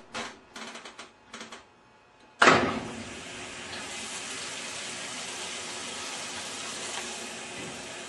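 A few light clicks, then, about two and a half seconds in, water starts abruptly and keeps rushing steadily into the tub of a Whirlpool direct-drive top-load washer as it fills for a wash.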